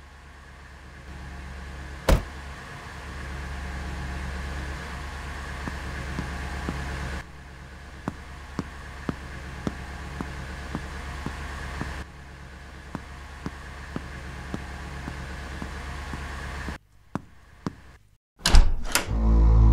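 A car door shuts with a single sharp thump about two seconds in, over a steady low rumble. Footsteps follow at about two a second. Near the end come a few clicks and loud knocks and scrapes as a glass entrance door is pulled open, then a loud low drone begins.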